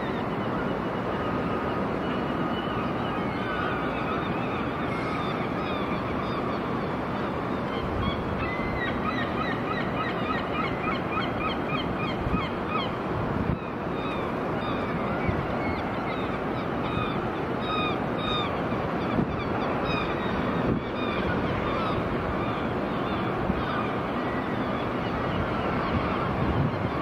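A flock of birds calling, many short honking calls overlapping, thickest in the middle, over a steady hum of city noise.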